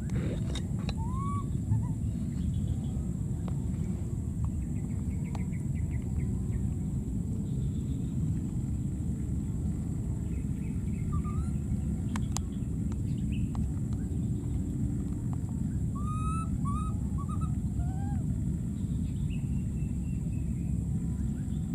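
Steady low outdoor rumble with a few short, high, arching animal calls scattered through: one about a second in, a few about halfway, and a small run of them near the end. A faint steady high whine lies underneath.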